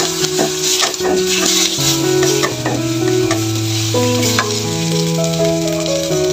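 Sliced shallots, garlic, chilies and bay and lime leaves sizzling in hot oil in a non-stick wok, stirred with a spatula that scrapes and clicks against the pan now and then. A background melody plays under it.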